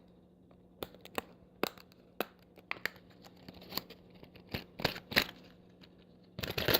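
Plastic blister packaging of a padlock being opened by hand, with scattered crackles and snaps of plastic and a louder crinkling burst near the end.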